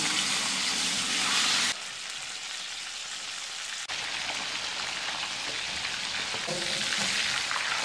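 Whole tilapia frying in hot oil in a pan, a steady sizzle. It is louder for the first couple of seconds, then drops suddenly to a softer, even sizzle.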